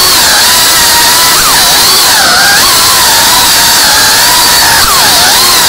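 FPV quadcopter's brushless motors and propellers whining loudly, the pitch dipping and climbing several times as the throttle changes.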